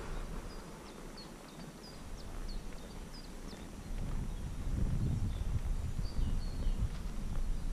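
Appaloosa horse walking over grass, its steps and movement heard as a low, uneven rumble that grows louder about halfway through. A small bird chirps repeatedly in the first half.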